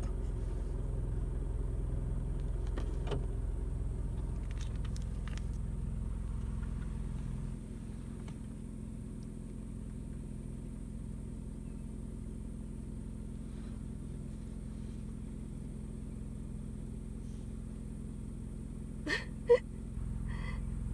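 Low, steady rumble of a car's engine heard from inside the cabin, dropping in level about seven and a half seconds in. Near the end there are two short, sharp sounds, the second one loud.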